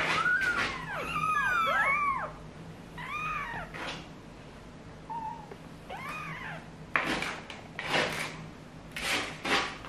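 Newborn kittens, about 18 days old, mewing in high, thin calls that rise and fall. Several overlap in the first two seconds, then single mews come at about three and six seconds. In the second half there is soft rustling of cloth and handling.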